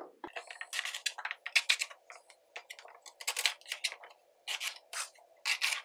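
A knife cutting raw green plantains on a wooden cutting board: irregular scrapes and short knocks of the blade through the fruit and against the board.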